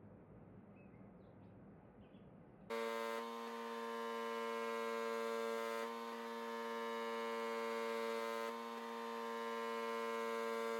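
Steady electrical hum from shop equipment that switches on abruptly about a quarter of the way in and holds one unchanging pitch with many overtones. Before it there is only faint room noise.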